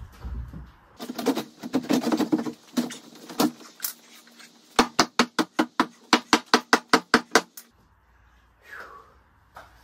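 A wooden 2x4 top plate clattering and knocking as it is fitted into the door framing, then a fast, even run of about fourteen sharp hammer taps, about five a second, knocking the board into place.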